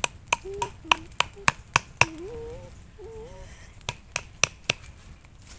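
Machete chopping a wooden stick: a quick run of sharp chops about a quarter-second apart, a pause of about two seconds, then four more.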